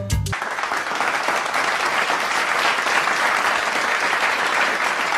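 Applause: a crowd clapping steadily and densely, starting as the music cuts off just after the start.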